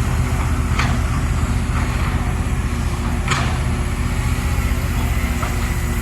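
Excavator's diesel engine running steadily, with two short sharp noises, one about a second in and one a little past three seconds in.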